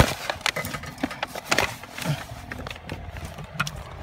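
2007 Nissan Sentra blower motor unit being worked out from under the dashboard, knocking and scraping against the surrounding parts as it comes free: a run of irregular clicks and clunks.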